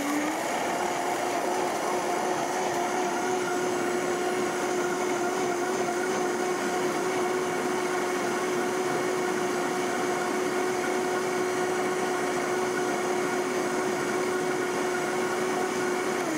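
Countertop blender running at high speed, blending cashews and water into a smooth cheese sauce. The motor gives a loud, steady whine that picks up slightly in pitch in the first half-second and then holds even.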